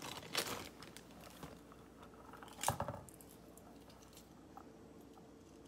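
Faint handling of a small silicone hand-sanitizer holder with a metal keychain chain on a stone countertop: a soft click just after the start and a sharper click a little under three seconds in, over a faint steady hum.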